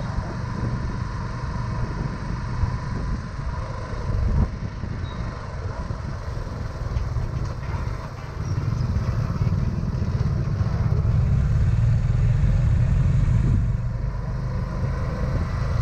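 Motorcycle running at low speed while being ridden, a steady low rumble that grows louder about halfway through.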